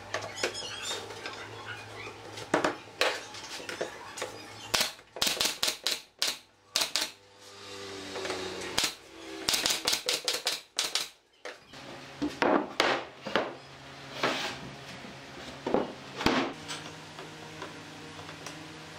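Pneumatic brad nailer firing nails into pine boards: a series of sharp shots, some single and some in quick runs of several.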